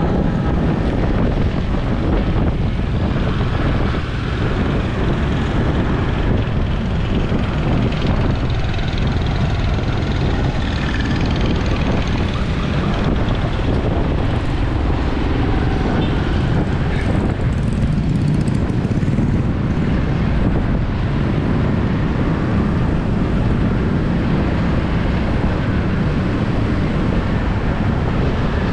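Steady vehicle and road noise, a continuous low rumble without breaks.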